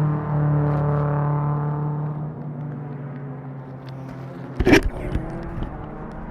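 Race car engine passing, its steady note loudest at first, then slowly dropping in pitch and fading as it moves away. About four and a half seconds in, loud crackling bursts break in.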